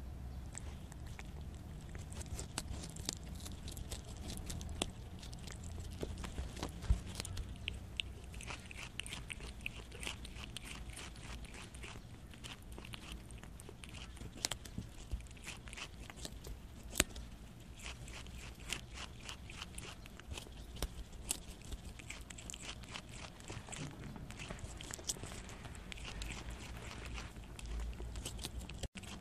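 Prairie dog biting and chewing Korean melon, picked up close by a lavalier microphone clipped to its body: a dense run of small crunches and clicks from its teeth on the fruit.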